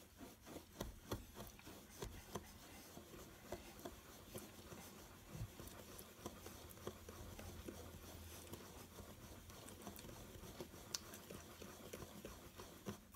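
Wire whisk stirring a dry mix of salt and ground spices in a bowl: a faint, steady gritty rasping with many small ticks.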